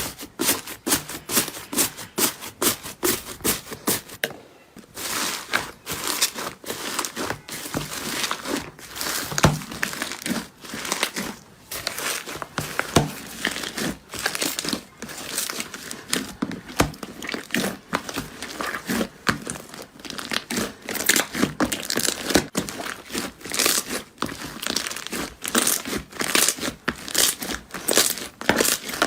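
Slime being worked by hand, giving off rapid crackling and popping, with a brief break about four seconds in.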